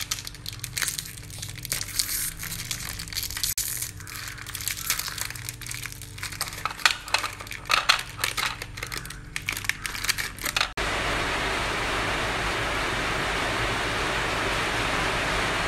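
A plastic biscuit wrapper crinkling and crackling in the hands, with small irregular clicks, for most of the clip. It cuts off suddenly near the end, giving way to a steady hiss.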